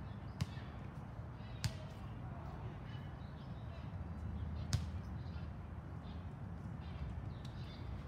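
Basketballs bouncing on an outdoor court: three separate sharp thuds a second or more apart, over a steady low rumble of background noise.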